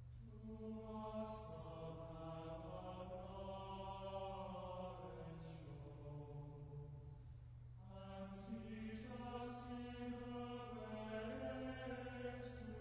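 Slow liturgical chant sung in long held notes, in two phrases with a pause for breath about six seconds in, faint and over a steady low hum.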